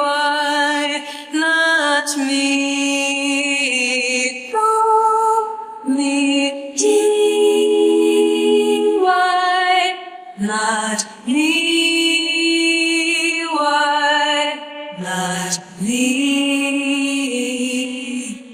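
Unaccompanied female voices singing wordless sustained notes, a cappella, with a harmony line under the melody in places. The notes change every second or two and waver slightly, and the singing fades out at the end.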